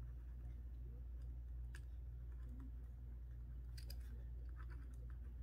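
Faint scratching and a few soft ticks of an erasable pen writing on a paper planner sheet, over a steady low electrical hum.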